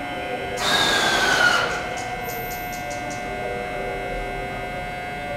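A short hiss of compressed air from an electric train standing at the platform, about a second long and with a slightly falling whistle in it, over a steady electrical hum, followed by a few faint clicks.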